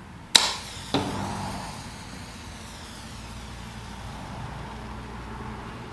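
Zippo stormproof match struck against its striker: two sharp scrapes about half a second apart as it catches, then a steady rushing noise as the match burns.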